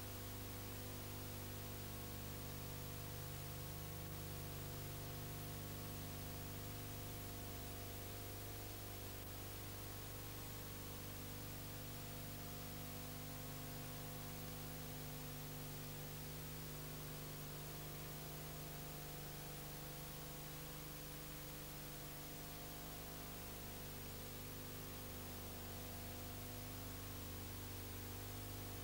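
Steady electrical mains hum with tape hiss, unchanging throughout, with no other sound: the empty soundtrack of a silent film transfer.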